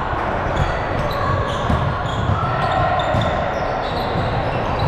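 Volleyballs thudding on a hard gym floor again and again at an irregular pace, over a steady murmur of voices and short high squeaks.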